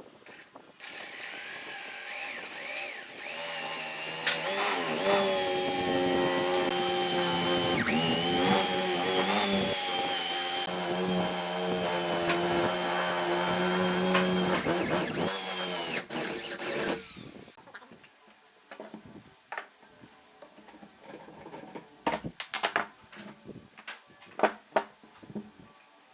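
Electric power tool's motor whining at high speed, its pitch dipping and recovering several times as if under load, then winding down after about sixteen seconds. Scattered short knocks and clicks follow.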